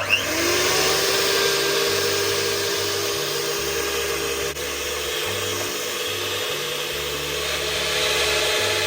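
Electric mixer switched on, its motor whine rising quickly and then running steadily at high speed, beating butter for a macaron filling.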